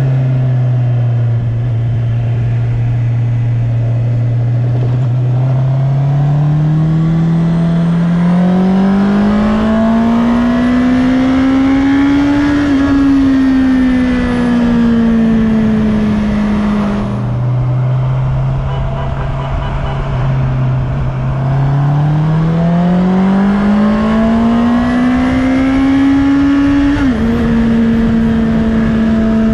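2019 Honda CB650R's inline-four engine on its stock exhaust, heard onboard while riding. The engine holds steady, then revs up smoothly, eases off and drops abruptly in pitch about seventeen seconds in. It revs up again and steps down sharply a couple of seconds before the end, the kind of sharp step an upshift makes, with wind rushing over the microphone underneath.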